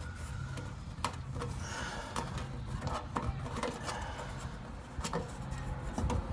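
Light scattered clicks and rubbing of pliers and fuel-line fittings being handled, a few sharp ticks a couple of seconds apart over a low steady hum.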